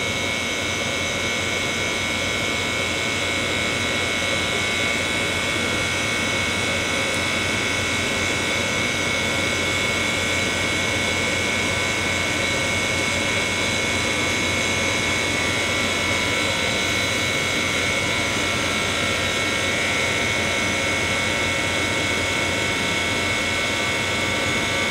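A machine running steadily during the air conditioner repair: an even hissing drone with a steady high whine held throughout.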